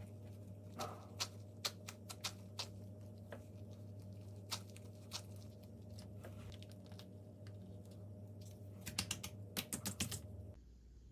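Plastic-gloved hands shaping seasoned rice into rice balls: scattered soft clicks and crinkles of the glove and rice, over a steady low hum. About nine seconds in there is a quick run of clicks as a plastic sauce packet is handled and squeezed.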